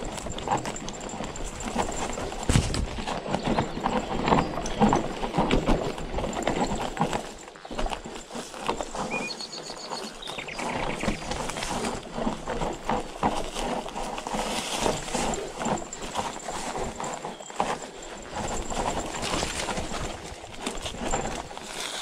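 Cube Acid Hybrid hardtail e-mountain bike rattling and knocking as its tyres roll over roots, stones and dry leaves on a downhill forest trail. The knocks are densest in the first seven seconds and lighter after. A bird chirps briefly about nine seconds in.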